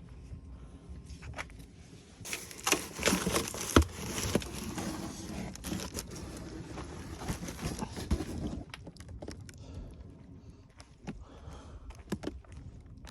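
Handling noise: rustling and crinkling with a few sharp clicks and clinks, busiest for the first half and tapering off.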